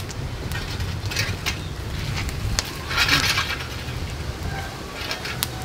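Open firewood fire crackling, with scattered sharp pops and a brief hiss about three seconds in. Wind rumbles low on the microphone.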